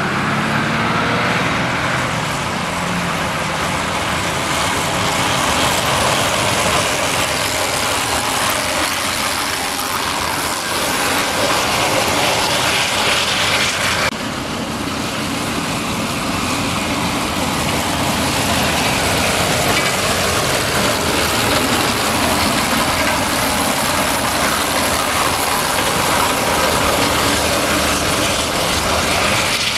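Steam trucks driving past on a sealed road, a steady noisy rush of running gear and road noise, changing abruptly about halfway through.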